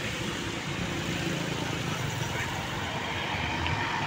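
Tour bus driving past, engine running over steady road noise.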